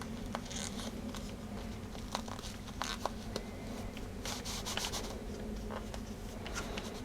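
Faint handling noises of a replacement ear pad being worked onto a headphone earcup: scattered soft clicks and brief scratchy rustles as the pad's edges are pushed into the gaps around the cup, over a steady low hum.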